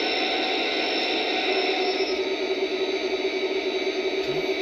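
Lionel SD70ACe model locomotive's onboard speaker playing its diesel engine sound, a steady running noise, with a steady tone joining in about a second and a half in.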